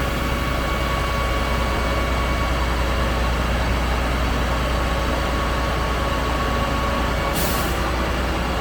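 Concrete pump truck's diesel engine running steadily under load, with a steady high whine over the low drone. A short hiss about seven and a half seconds in.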